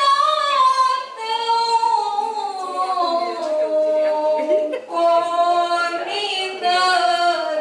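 A woman's voice reciting the Qur'an in melodic tilawah style through a microphone, unaccompanied. Long held notes glide and waver between pitches, with short breaks between phrases.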